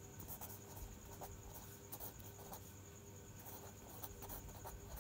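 Pen writing by hand on paper: faint, irregular scratching strokes as words are written, over a faint steady hum.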